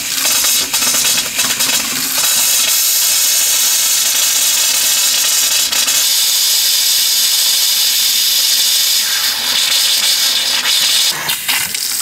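Open RV kitchen faucet spitting compressed air and water spray: a loud, steady hiss as the water lines are blown clear for winterizing. Near the end, a faucet runs water into a sink.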